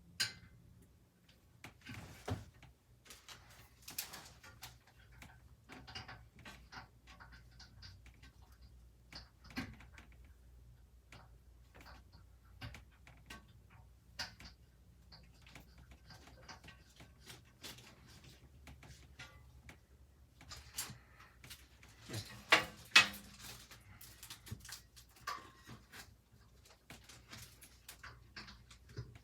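Parts of a PC case being handled and fitted: scattered light clicks, taps and knocks, with two sharp, louder knocks a little after twenty seconds in, over a faint steady low hum.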